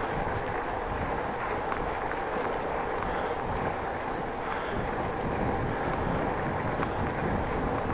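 Steady wind rumble on an action camera's microphone while riding a bicycle, mixed with tyre and road noise, with a few faint ticks.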